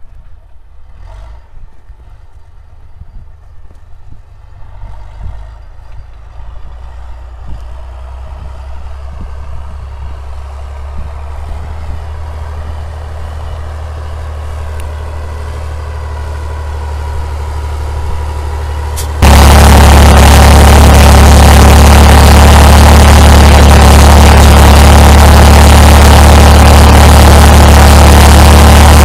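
HTZ T-150K tractor's diesel engine working across a field. It is faint at first and grows steadily louder as the tractor approaches. About two-thirds in it jumps suddenly to a loud, steady engine sound heard close up on board the tractor.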